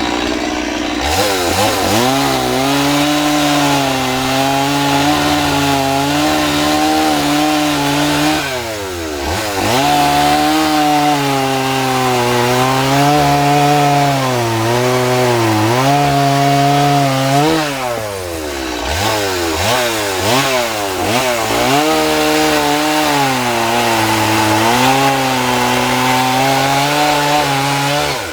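Two-stroke chainsaw running at high revs while cutting into a wood block, its pitch wavering as the bar bites. Twice, about a third and two thirds of the way through, the throttle is let off and the revs drop and climb straight back up.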